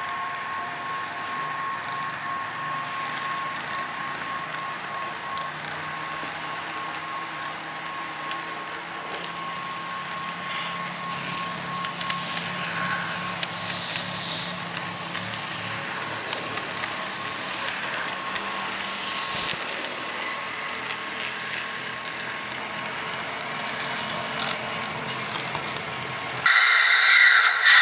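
HO-scale Bowser ALCO C-636 model locomotive running on track, a new model with little running time: its motor and truck gears give a steady whir, with a thin high whine in the first third. About a second before the end a louder, different mechanical sound cuts in suddenly.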